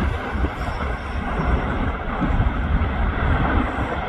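Erupting volcanic vent fountaining lava: a continuous rough rumble with uneven low pulses.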